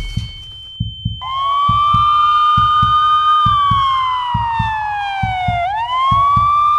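Emergency-vehicle siren wailing: it starts about a second in, rises and holds, sinks slowly in pitch, then rises again near the end. Low paired thumps repeat steadily beneath it, about every half second.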